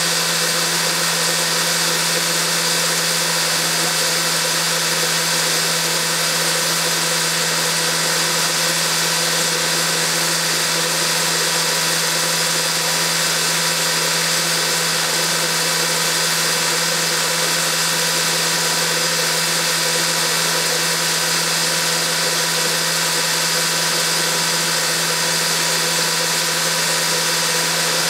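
Farm machinery running steadily at constant speed, a continuous mechanical hum with a high whine over a dense hiss that never changes.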